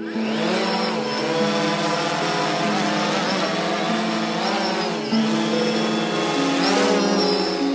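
Small electric motors and propellers of a toy B-2-shaped RC drone-plane whining, the pitch rising and falling as it lifts off and holds a hover. Background music with held notes plays under it.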